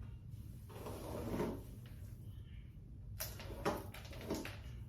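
Faint swishing of a brush being worked through wet wig hair, with three sharp clicks or knocks in the second half.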